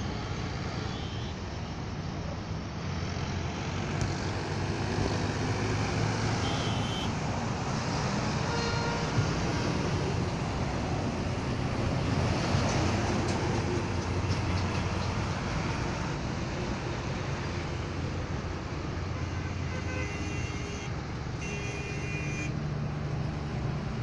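Heavy trucks passing on a highway: a steady engine drone and tyre noise that swells to its loudest about halfway through as a big truck goes by close. Short high horn toots sound a few times, most clearly near the end.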